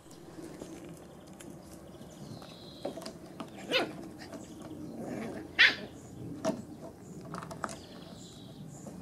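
Nine-week-old puppies yipping at play. There are two sharp, high yips about two seconds apart, the second the louder, and a few fainter yaps around them.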